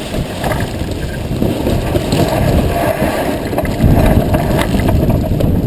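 Wind buffeting the microphone over the rush of water along a sailboat's hull as it sails through chop, with a few light knocks. The wind noise swells louder about four seconds in.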